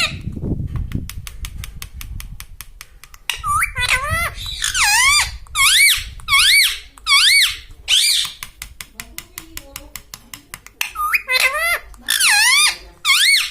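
Ring-necked parakeet giving a string of loud, high squawking calls, each swooping up and down in pitch. Before them, in the first few seconds, comes a fast run of clicks.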